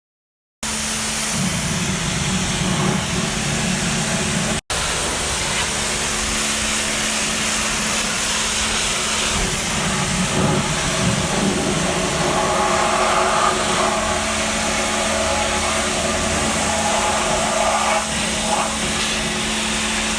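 Cleaning machine running steadily with a constant hum and a loud hiss, cutting out for an instant about four and a half seconds in.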